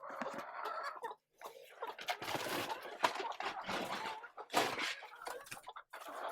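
Chickens clucking amid rustling, with a couple of sharp knocks about three and four and a half seconds in.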